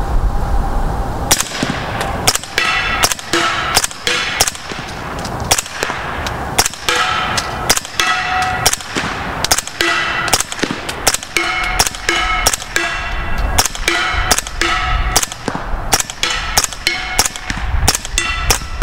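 Suppressed 9mm AR short-barreled rifle firing 147-grain subsonic rounds in a long string of rapid single shots, about two a second. Each shot is a sharp crack with the clack of the bolt cycling. After many of them comes a short metallic ring from bullets striking a steel target.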